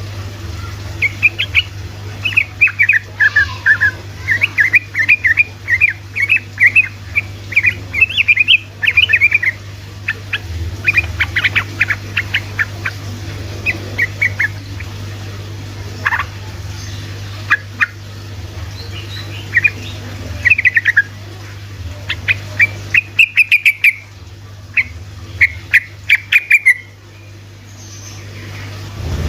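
Yellow-vented bulbul (trucukan) singing fast runs of short chattering notes in several bursts with brief pauses, over a steady low hum.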